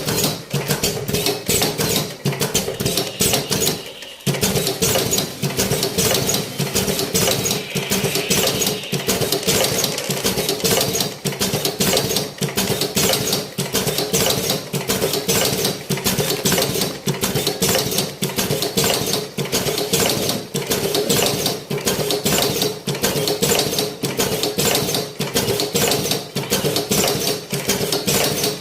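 Cigarette rolling machine running: a fast, steady clatter of clicks over a steady hum. It drops out for a moment about four seconds in, then carries on.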